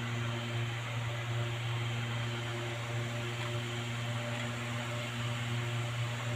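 A steady low machine hum, with fainter higher tones fading in and out over it.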